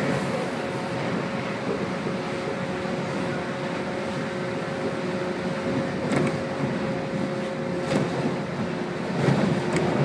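Onboard running noise of a JR 115 series electric train under way: a steady rumble of wheels on rail with a constant whine, and a few sharp clicks in the second half.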